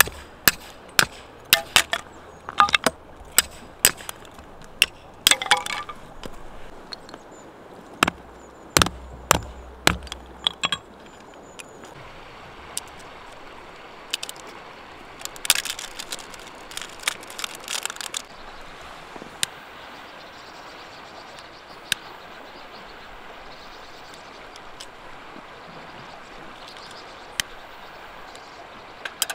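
A run of sharp knocks and clinks between hard objects, some with a short metallic ring. They come thick through the first ten seconds, again in a cluster past the middle, then only now and then over a steady outdoor hiss.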